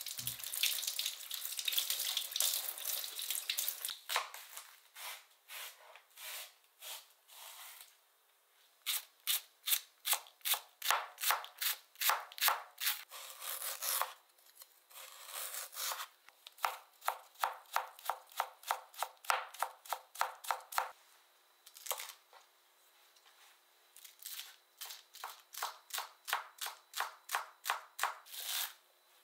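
Tap water running over green onions being rinsed, then a santoku knife chopping on a cutting board in quick runs of strokes, about four a second, with short pauses between runs as the green onions are cut up.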